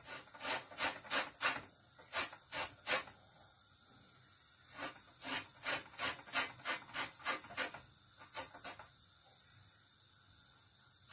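Lemon wedges zested on a metal box grater: quick rasping strokes of rind across the teeth, in two runs with a short pause between them.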